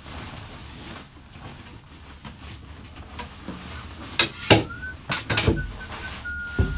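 Ski lift running with a low steady rumble. Two sharp clunks come about four seconds in, then a thin steady squeal for about two seconds, and another clunk near the end.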